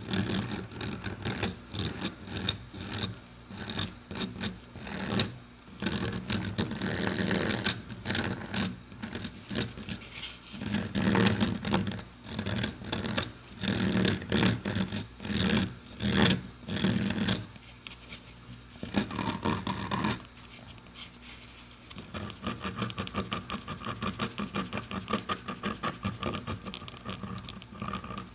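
Rotary tool with a small cutting bit grinding into a briar pipe bowl to texture it, pressed hard in short, uneven passes.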